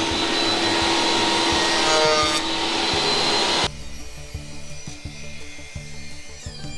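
Benchtop thickness planer running and cutting a board on a flattening sled, its whine shifting in pitch as the cut loads it. It cuts off abruptly about three and a half seconds in, leaving background music with a steady beat.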